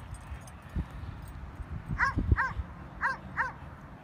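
A dog yipping: four short, high yips in two quick pairs, starting about halfway through, over a few low thumps.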